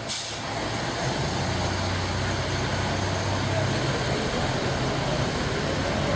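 Diesel railcar's engine running with a steady low drone as the railcar pulls away from the platform; the drone strengthens about a second in. A short hiss sounds at the very start.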